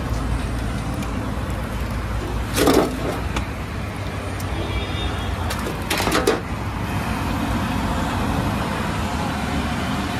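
Egg bondas deep-frying in a wok of hot oil with road traffic behind. A metal slotted ladle clatters loudly twice, about three and six seconds in, as the fried bondas are lifted out onto a perforated aluminium plate.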